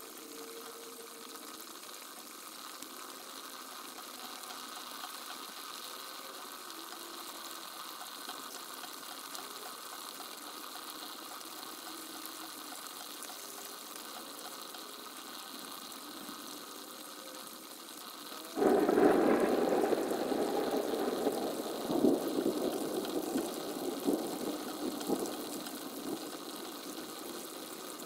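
Steady background hiss, then about two-thirds of the way through a sudden loud clap of thunder that rumbles on with several peaks and slowly fades.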